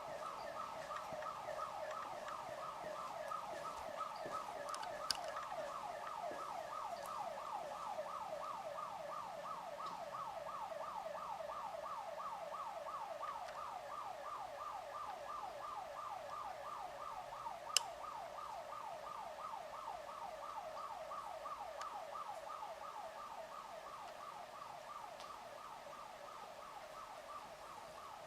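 Electronic building alarm siren sounding a fast warbling tone, about four sweeps a second. A sharp click comes about five seconds in, and a louder one about two-thirds of the way through.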